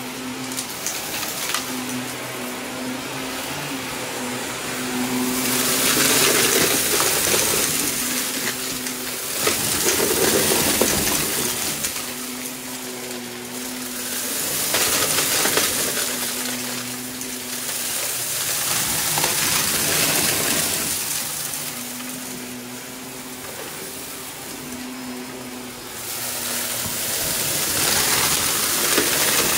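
Shark upright vacuum cleaner running over carpet, sucking up a mess of small plastic pieces, sequins and glitter that rattle and crackle up through it into the dust cup. The steady motor hum sits under a rattling hiss that swells several times as the head passes over the thicker piles.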